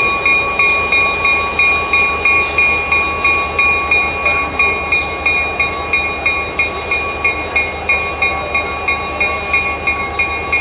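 Diesel locomotive running as it moves slowly away through the yard: a rhythmic pulsing about three times a second over a low rumble, with a steady high whine.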